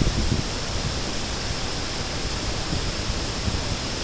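Waterfall rushing: a steady, even roar of falling water, with a few low thumps about the first half-second.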